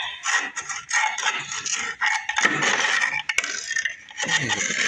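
A long screwdriver scraping and rattling against metal, with many sharp clicks, as mouse-nest debris is raked out of the car's body.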